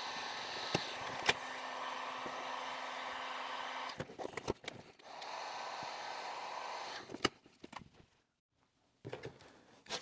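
Electric heat gun blowing steadily, softening the glue on a cardboard box's flaps. It stops about four seconds in and runs again for about two seconds, with sharp clicks and knocks of handling between and after the runs.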